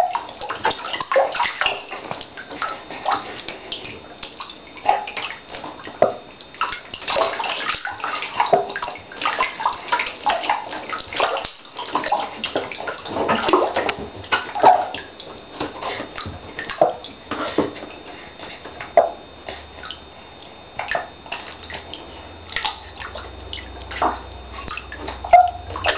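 Water splashing and sloshing, as in a bathtub, with many short, irregular splashes.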